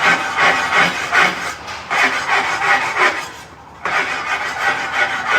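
Metal spatula scraping across a flat-top hibachi griddle in rhythmic strokes, about two to three a second, pausing briefly about three and a half seconds in.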